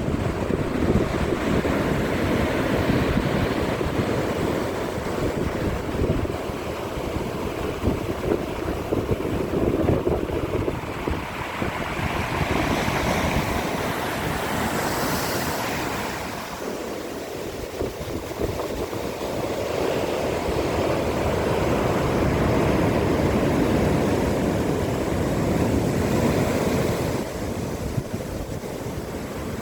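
Sea waves washing onto the shore, with wind buffeting the microphone; the rushing swells and eases, dipping for a couple of seconds about halfway through.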